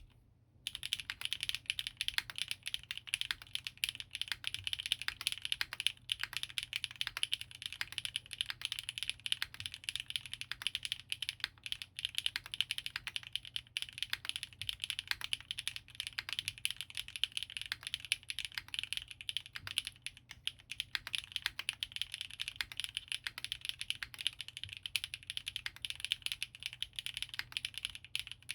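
Continuous fast typing on a custom mechanical keyboard (Geonworks Frog TKL with an aluminium leaf-spring plate, lubed Gateron RAW switches and GMK ABS keycaps), a dense stream of keystroke clacks. It starts about half a second in.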